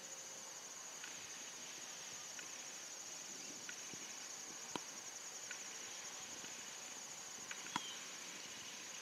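A steady high-pitched chorus of insects chirping, typical of crickets in late-summer grass, with two sharp clicks about five and eight seconds in.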